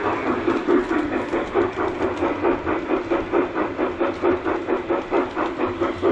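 G-scale model steam locomotive's onboard sound unit playing a steady, rhythmic steam chuff, about three to four chuffs a second, with a hiss, as the locomotive runs along the track.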